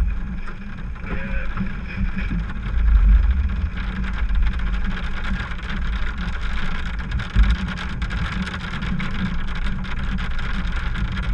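Steady low rumble of a vehicle driving, heard from inside the cabin, with a louder low swell about three seconds in and a short low thump a little past seven seconds.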